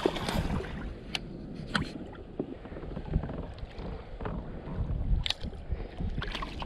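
Wind buffeting the microphone and water slapping against a plastic kayak hull, with a few short sharp clicks and knocks as a small hooked pike is brought alongside.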